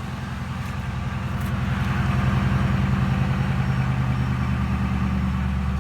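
Ford Crown Victoria's 4.6-litre modular V8 idling steadily shortly after a cold start. It grows louder over the first couple of seconds, then holds even.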